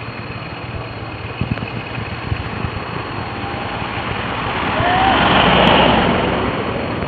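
Steady road noise with a low engine hum, and a vehicle passing close by, its sound swelling to its loudest between five and six seconds in and then fading.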